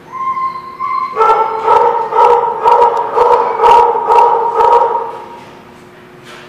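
A dog crying out in play: a thin high whine, then about a second in a string of loud, howl-like cries held at one pitch and pulsing about twice a second for some four seconds before fading.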